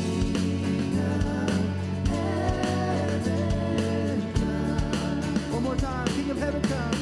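Live worship band music: drums, bass and guitar keep a steady beat under a wavering sung melody.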